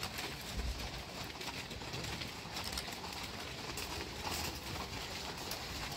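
Several horses walking on a gravel path, their hooves crunching and clopping in an uneven patter.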